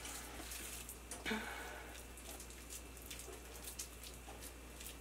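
Hands squishing and patting raw ground meatloaf mix into a patty: faint, irregular soft wet clicks and squelches.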